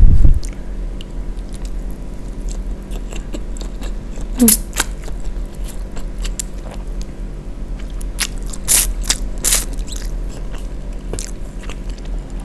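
Close-miked eating sounds: instant fried noodles slurped in and chewed, with wet mouth clicks and a few longer hissy slurps. A low thump at the very start.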